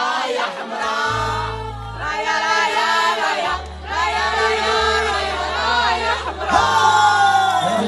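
Live Moroccan popular music: voices singing long phrases over held bass notes, with no drum beat in this passage.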